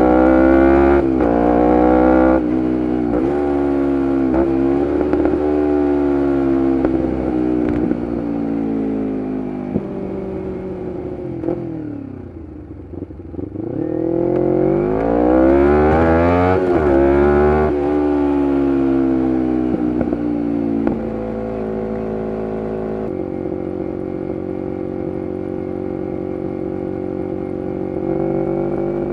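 2011 Kawasaki Ninja 250R SE's parallel-twin engine through a full Graves race exhaust, revving up through gear changes on the move. About midway it drops back almost to idle, then pulls hard up through the revs again and settles to a steady cruise, picking up again near the end.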